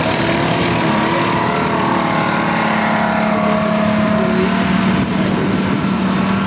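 M10 Achilles tank destroyer on the move: its engine running steadily under load together with the noise of its tracks on dirt.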